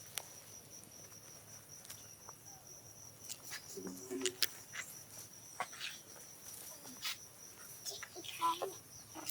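Crickets chirping in a steady, fast, high-pitched trill, with scattered sharp clicks and a couple of brief faint vocal sounds.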